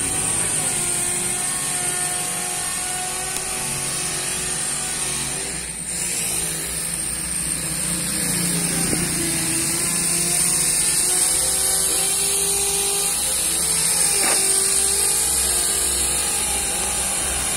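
A motor vehicle engine running, its pitch drifting slowly down and back up, under a steady high hiss.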